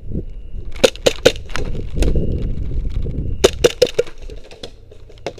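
Footfalls and gear rustling of a person moving over grass and mulch, with two quick runs of three or four sharp wooden cracks, one about a second in and one about three and a half seconds in.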